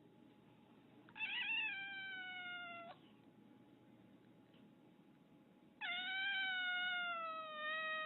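A domestic cat giving two long, drawn-out meows, each sliding slowly down in pitch; the second starts about three seconds after the first ends and lasts longer.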